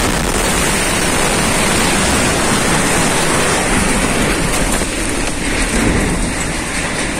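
A loud, steady rushing roar from a fuel truck on fire, starting abruptly just before and easing slightly towards the end. It is mixed with handling noise from the phone as it is carried on the run.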